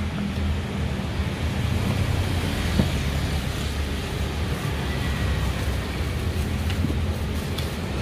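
Steady low street rumble of traffic noise, with a few light taps and scrapes of metal bench scrapers chopping through ground peanuts and sugar in a metal tray.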